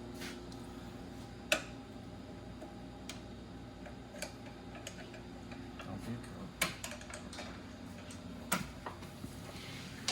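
Scattered sharp clicks and knocks of hand tools and parts during a motorcycle teardown, seven or eight at uneven intervals, the loudest a little over a second in, over a steady low hum.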